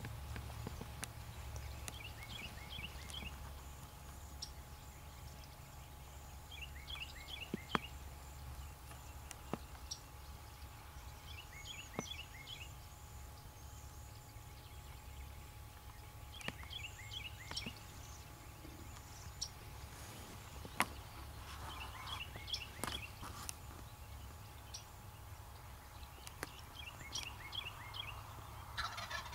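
Quiet outdoor field sound with a bird repeating a short series of quick high notes about every five seconds. Near the end, an Osceola wild turkey gobbler starts to gobble.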